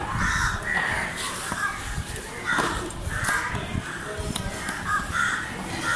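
Crows cawing again and again, with a sharp knock or two of a knife on the wooden chopping block in the second half.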